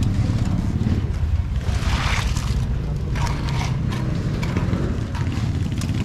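Engine-driven concrete mixer running steadily, with a scrape about two seconds in.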